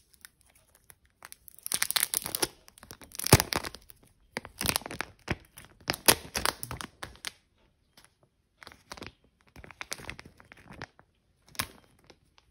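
Protective plastic film being peeled off a new Samsung Galaxy M52 5G smartphone, crackling and crinkling in a run of irregular bursts. The loudest burst comes about a third of the way in, and quieter, sparser crackles follow in the second half.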